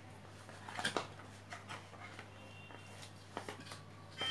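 Light handling noise of a cardboard phone box and its paper insert: a few soft clicks and rustles, the strongest about a second in, over a low steady hum.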